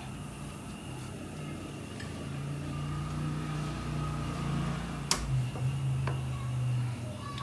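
A low motor hum with a few pitched tones that swells over several seconds and shifts pitch about five seconds in, with a sharp knock at that moment.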